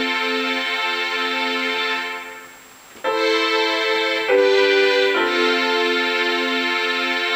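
Sustained keyboard chords from a software instrument played on a Roland A49 MIDI controller. The sound dies away about two seconds in, then new chords come in about three, four and five seconds in.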